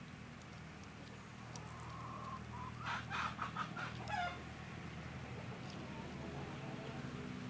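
Domestic hens clucking: a quick run of about half a dozen short clucks begins about three seconds in and lasts a second and a half, over a faint low steady hum.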